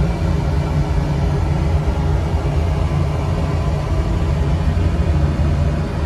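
Slant/Fin Intrepid oil-fired cast-iron boiler running, its oil burner firing with a steady deep rumble.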